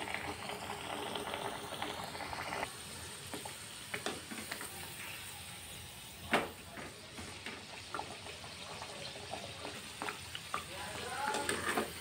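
Kachori deep-frying in hot oil in a steel kadhai: a steady sizzle and bubbling, with a few sharp clicks as the metal skimmer ladle knocks against the pan. The loudest click comes about six seconds in.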